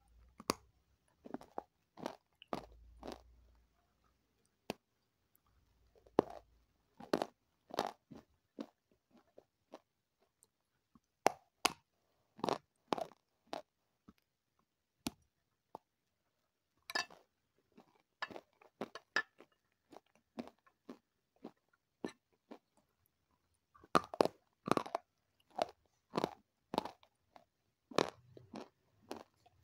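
Close-miked crunching as brittle food is bitten and chewed: clusters of sharp crackling crunches, with a few pauses between mouthfuls.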